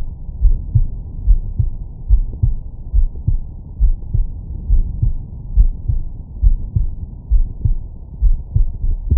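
A man's heartbeat picked up by a Stemoscope digital stethoscope on the chest: regular lub-dub pairs of deep, bassy thumps, a little under a second apart.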